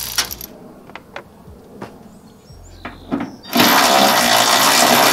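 Cordless electric ratchet motor running a bolt in, stopping about a third of a second in; a few sharp clicks in the pause; then the ratchet runs again from about three and a half seconds in.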